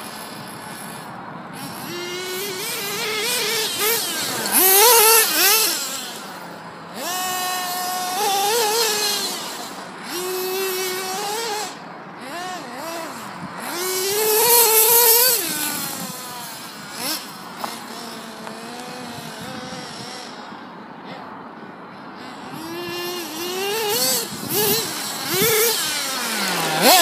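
Nitro engine of a Losi 2.0 RC buggy revving in repeated bursts of throttle. Its high whine rises and falls in pitch over and over, loudest about five seconds in, around fifteen seconds and at the end.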